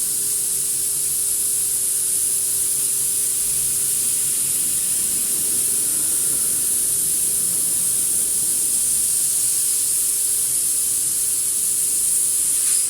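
Steady, loud hiss of blowing air from a running workshop machine, with a faint steady hum underneath; it cuts off abruptly at the end.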